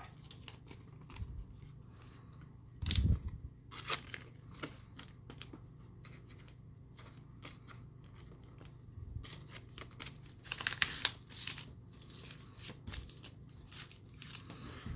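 Intermittent crinkling and rustling of Pokémon trading cards, plastic card sleeves and foil booster-pack wrappers being handled on a tabletop, loudest about three seconds in and in a cluster around ten to eleven seconds.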